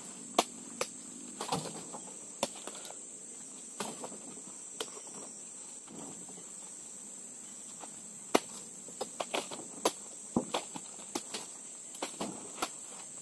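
A steady high insect buzz from the plantation under irregular sharp knocks and thuds, made as oil palm fruit bunches are speared with a pole and tossed up onto the load in a pickup's bed. The knocks come in clusters, with a quieter gap of a few seconds in the middle.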